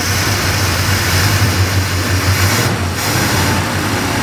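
Dodge Dart's engine running steadily, held a little above idle to bring up the alternator's charging.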